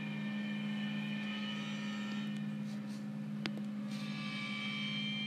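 A steady low hum with thin, steady high tones above it that change about four seconds in, and one sharp click about three and a half seconds in.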